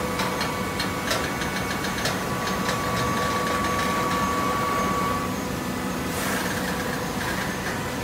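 Automatic-tie horizontal hydraulic baler running with a steady machine hum. A string of sharp clicks comes in the first few seconds. A thin steady whine cuts out about five seconds in, followed by a short hiss.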